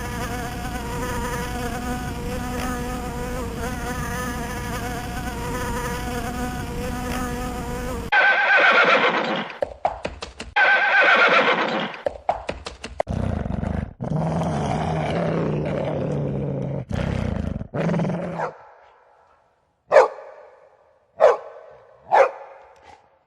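A sequence of animal sound recordings: an insect buzzing steadily for about eight seconds, then other animal calls in turn: two loud shrill calls, a long low call, and three short sharp calls near the end.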